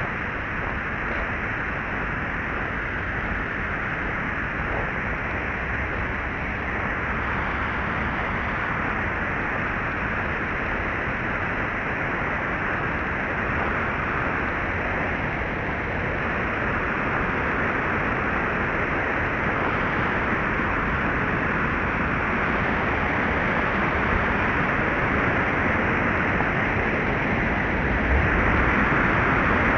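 Water pouring over a low concrete weir, a steady rushing noise that grows gradually louder, with a small step up near the end.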